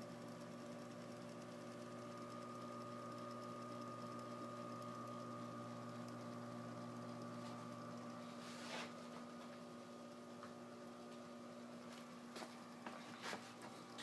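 Smith Corona Sterling electric typewriter's motor running with a faint, steady hum. A few sharp clicks come about nine seconds in and twice near the end.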